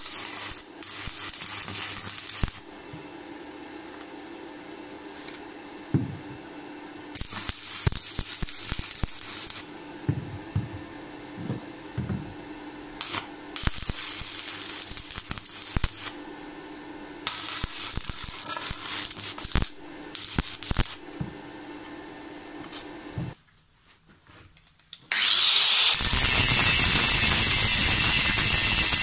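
Electric arc welding crackling in several bursts of one to three seconds each, over a steady low hum. About 25 seconds in an angle grinder starts and runs loud with a steady high whine, cutting metal.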